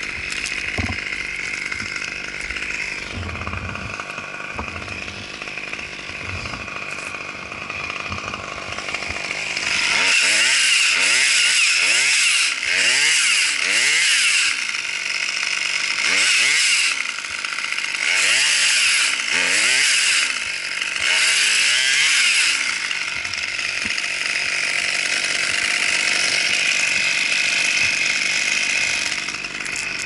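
Husqvarna T540 XP top-handle two-stroke chainsaw running, then revved high in about six bursts from about ten seconds in, and running steadily again for the last several seconds.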